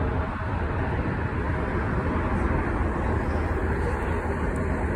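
Steady roar of road traffic mixed with the engines of a Boeing 787 jet airliner on final approach, holding an even level throughout.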